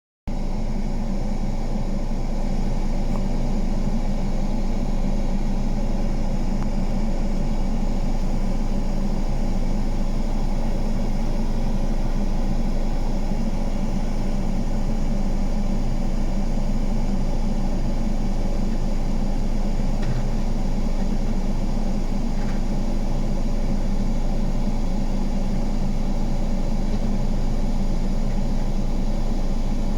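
Diesel engine of heavy construction machinery running steadily at a constant speed, a low, even hum.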